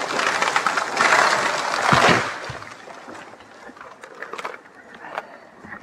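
A felled spruce coming down, its crown rushing and crackling through the branches of neighbouring trees, then hitting the ground about two seconds in. After that there is only faint rustling and scattered small clicks.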